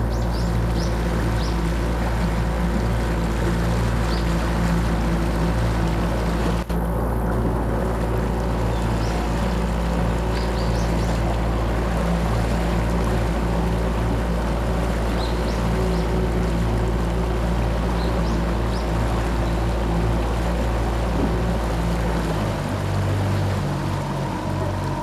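A tour boat's motor running steadily under way, a low droning hum over water rushing past the hull. The engine note changes about 22 seconds in. A few faint short high chirps are scattered through it.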